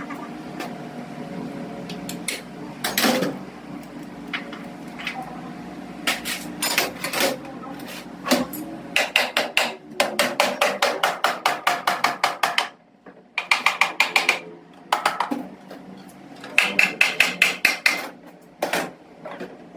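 A hammer tapping on metal in quick runs of strikes, about six a second, with short pauses between the runs and a few single blows before them.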